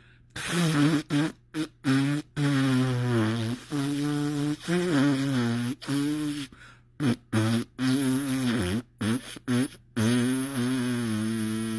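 A man's voice standing in for a flute with the mouth, humming and buzzing a slow folk tune in a string of held notes broken by short pauses, the pitch sliding between notes.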